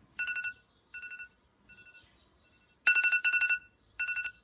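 iPhone alarm tone going off: groups of rapid high-pitched beeping, each loud group followed by quieter and quieter repeats, starting over about every three seconds.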